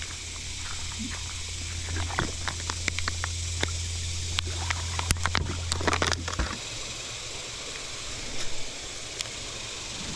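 Steady hiss of flowing river water, with a run of clicks and knocks from gear being handled at a plastic kayak over the first six seconds or so, thinning out after that.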